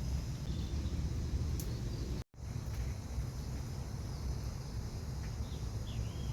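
Outdoor ambient sound: a steady low rumble with a few faint, short high chirps near the end. The sound cuts out completely for a moment about two seconds in.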